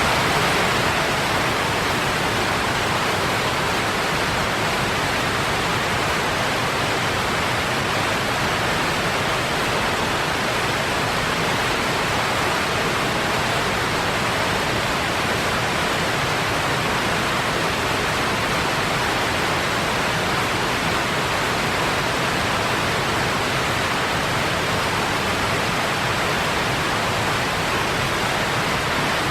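Wheat grain pouring steadily into a silo: a continuous, even rushing noise without pauses.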